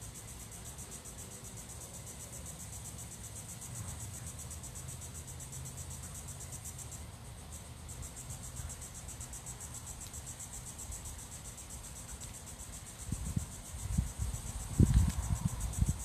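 Insects trilling in a steady, high, rapidly pulsing chorus. Near the end come a few dull low thumps, the loudest sounds here.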